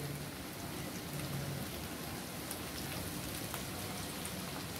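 Hot oil sizzling steadily in a frying pan of snake gourd and coconut vaji, with faint scattered crackles.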